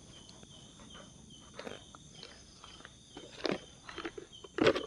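Insects trill steadily in the background while a small box is handled and lifted from a camp table, making scattered rustles and light knocks that are loudest near the end.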